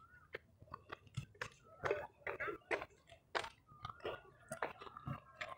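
Faint, irregular crunches and clicks of someone walking up a stony path with a handheld phone.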